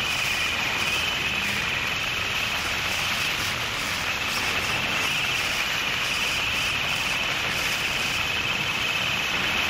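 Harsh noise music: a dense, unbroken wall of distorted static at a constant level, with a brighter, slightly wavering hiss sitting high above it.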